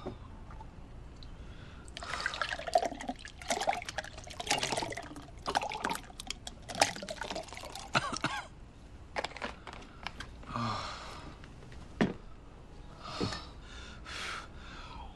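Milky liquid poured from a plastic bottle into a glass, splashing and trickling for several seconds, followed by a few shorter sounds and a sharp click.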